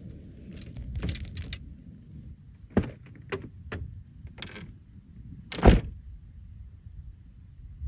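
Handling clatter: a few short clicks and knocks, then one louder thump a little past the middle, over a low rumble.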